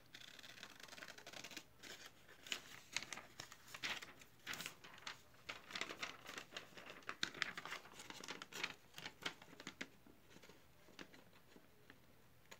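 Scissors cutting a paper sticker: irregular snips with paper rustling, dying away near the end.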